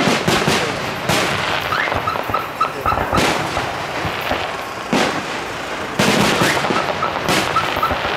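Aerial fireworks shells bursting: a string of sharp bangs, each followed by crackling. Twice, a run of short high chirps repeats about four times a second between the bursts.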